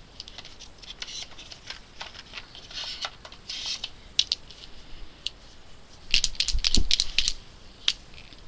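Plastic Derwent Graphik paint pens clicking and clattering against one another and their case as they are handled and swapped, with a loud cluster of sharp clicks and a low knock about six to seven seconds in, and lighter rustling and ticks before.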